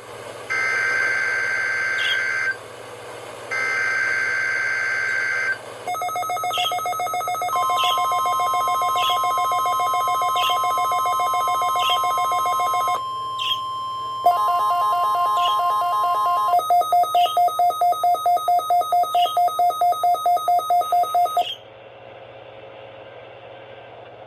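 NOAA Weather Radio alert signals: three short bursts of screeching digital data tone (the SAME header), then the steady single-pitch warning alarm tone held for about nine seconds, the tone that precedes emergency broadcasts. Regular beeping runs under the tone, turns into a rapid pulsing beep about four times a second, and cuts off about 21 seconds in, leaving a quiet hum and hiss.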